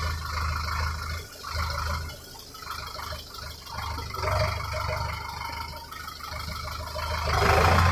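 Engine of farm harvesting machinery running with a steady low hum that swells and eases, growing louder near the end.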